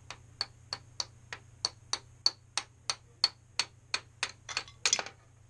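Small plastic toy mallet from a Don't Break the Ice game tapping on the game's plastic ice blocks and tray in a quick, even series, about three sharp clicks a second, ending in a short, louder clatter of several hits together.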